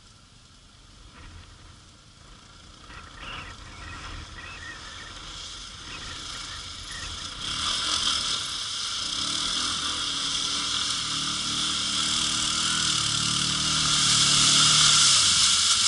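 An ATV engine revving up and down as the quad ploughs through shallow floodwater, with water splashing and spraying around it. It starts faint and grows louder as it approaches, loudest a second or two before the end as it passes close.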